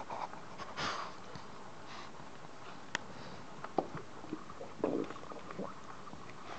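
Newborn Boston terrier puppies snuffling and shuffling in their bedding, with a few small clicks.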